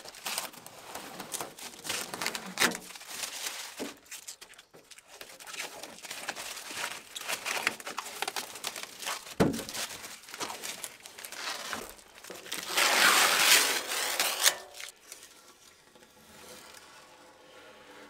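Plastic wrapping being crumpled and pulled around a stainless steel sink, crinkling and rustling in quick crackles. It is loudest in a burst of about two seconds near thirteen seconds in, with a single knock against the sink a little before.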